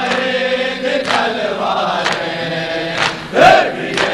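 A crowd of mourners chanting a noha refrain together, with chest-beating (matam) about once a second. One voice rises loud about three and a half seconds in.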